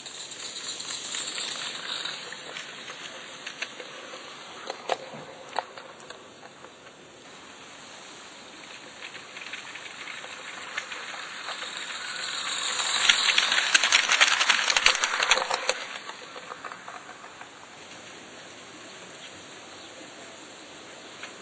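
Roundhouse Millie live steam garden-railway locomotive running with a steady steam hiss. It draws close and passes about two-thirds of the way through, its rapid exhaust beats swelling loud and then fading.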